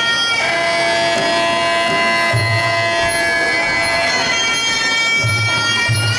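Music with a held, reedy wind-instrument melody over a few low, heavy drum beats, about half a second each, around the middle and near the end.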